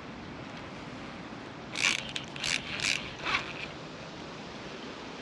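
Fishing reel working in four short, loud bursts about half a second apart, over a steady light hiss of wind.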